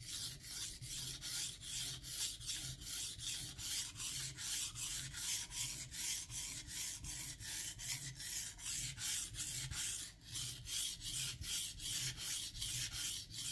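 Ryuko santoku blade being stroked back and forth on a wet whetstone: a steady, rhythmic gritty scrape, about three strokes a second, as one side of the edge is sharpened.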